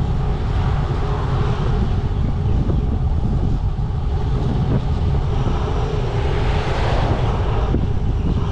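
Wind rumbling over a bike-mounted camera's microphone while riding, with road traffic passing. The traffic swells about seven seconds in.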